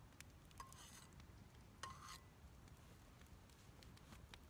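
Faint stirring: a knife clinking a few times against the inside of a 12-ounce Ozark Trail thermos as a drink is mixed, the clearest clink about two seconds in.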